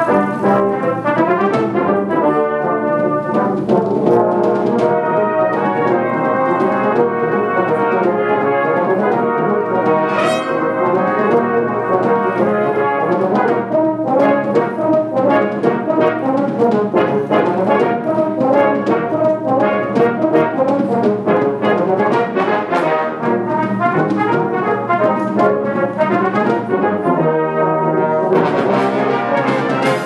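Brass band of cornets, trombones, euphoniums and tubas playing a piece together, the full ensemble sounding at a steady, loud level.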